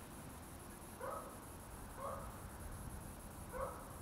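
A dog barking three times, in short single barks.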